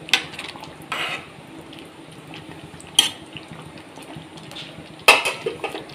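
Spatula stirring a thick curry in a steel pan, knocking and scraping against the pan a few times, with the loudest scrape near the end.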